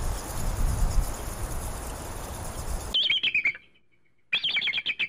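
About three seconds of even rushing noise with a low rumble. Then an eagle calls in high, quavering yelps: first a falling call, then, after a short pause, a quick run of repeated calls.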